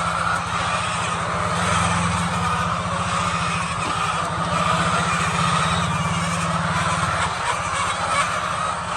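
A large flock of chickens clucking and calling together, a dense steady chatter, over a steady low hum.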